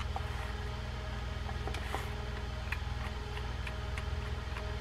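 Faint, irregular small metallic ticks of a micro screwdriver working a tiny screw out of a fishing reel's drag assembly, over a steady background hum.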